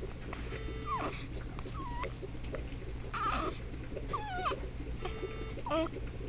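A baby making about five short, high squeals and coos a second or so apart, each bending up and down in pitch.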